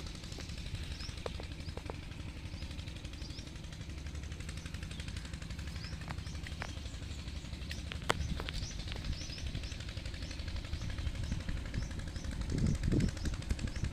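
Small birds chirping with short, repeated chirps about twice a second over a steady low rumble, with a few sharp clicks; the rumble swells near the end.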